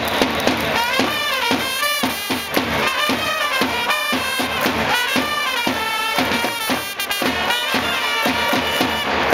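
Cheering-section trumpets playing a baseball fight-song melody in unison over a steady bass drum beat: a player's chance theme, the song a Japanese baseball cheering section plays when its team has a scoring chance.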